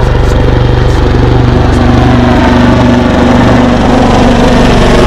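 Small fishing boat's engine running steadily at speed, loud and close.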